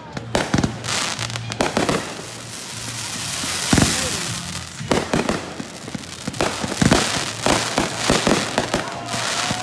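Consumer fireworks cake firing: a string of sharp bangs and pops, irregularly spaced, with crackling hiss between them.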